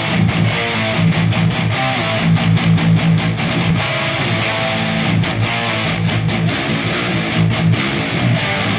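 Background music led by strummed electric guitar, continuous and loud.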